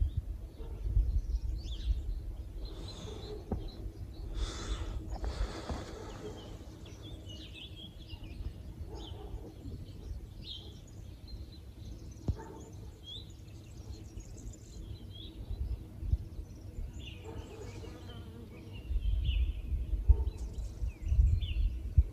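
Open-air ambience with small birds chirping here and there, short high calls scattered through. Low rumbling gusts of wind hit the microphone near the start and again near the end.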